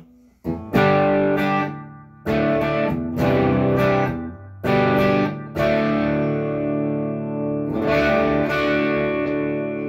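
Jaguar electric guitar played through its humbucker, with volume on 10 and tone rolled down to 3 under 50s Les Paul-style wiring: a series of chords struck and left to ring. The humbucker is not as hot as the Gibson's.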